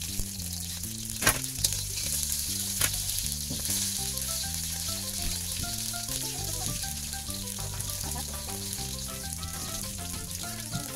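Oil sizzling steadily in a wok around a whole snakehead fish (dalag) frying to a crisp golden brown, with two sharp clicks a little over a second and nearly three seconds in. Background music with a stepping bass line plays underneath.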